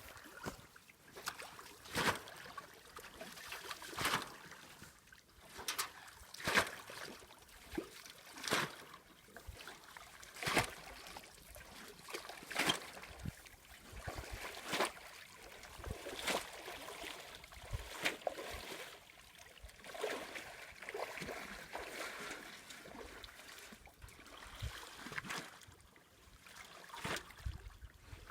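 Shallow water splashing and sloshing in sharp strokes about every two seconds, with trickling in between, as the water is worked while fishing for crucian carp.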